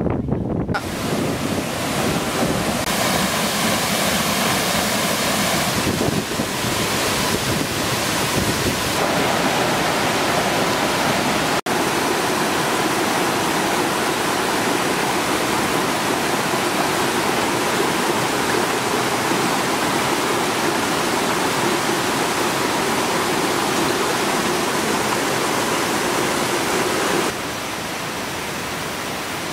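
Steady rushing of water, like a waterfall or fast stream, as an even hiss, with a few sudden shifts in level and a split-second dropout partway through.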